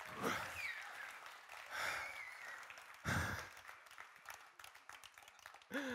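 A man's heavy breaths and sighs into a stage microphone just after finishing a song, three or four of them a second or more apart, with faint scattered clicks between them.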